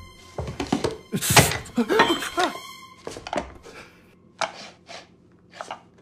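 Small objects being handled and knocked: a quick run of taps, knocks and clatters with a few short squeaks, busiest in the first couple of seconds, then a few isolated clicks.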